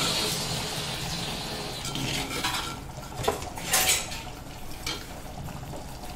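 Steel ladle stirring thick curry in an earthenware clay pot, scraping and knocking against the pot a few times around the middle.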